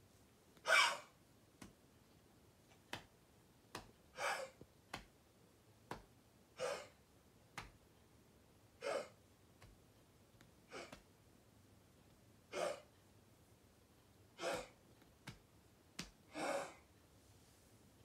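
Dog coughing with kennel cough: about eight short, harsh coughs, one every two seconds or so, with faint sharp clicks in between.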